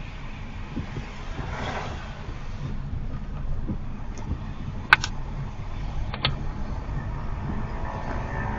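Steady low road and tyre rumble inside the cabin of a moving Honda HR-V e:HEV hybrid, with two sharp clicks about five and six seconds in.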